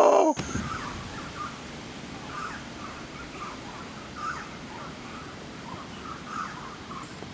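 A loud, low howl cuts off abruptly in the first half second. It gives way to steady rainforest background hiss with short, repeated bird calls, a few each second.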